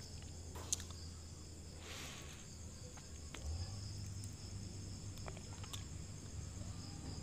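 Quiet background: a steady high-pitched whine with a low hum under it, and a faint sharp click under a second in.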